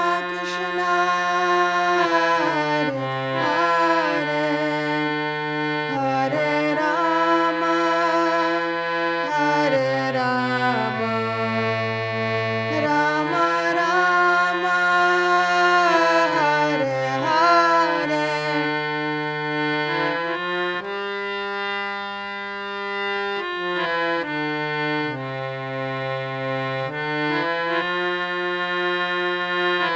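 Indian harmonium playing a slow melody. Its reeds sound sustained notes that change every second or two over a steady drone, with a softer passage about two-thirds of the way through.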